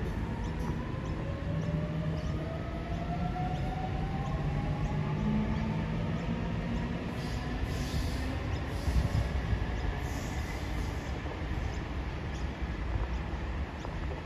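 Sydney Trains electric train accelerating: its traction motors whine in several tones that climb steadily in pitch, over the steady rumble of the train running on the rails.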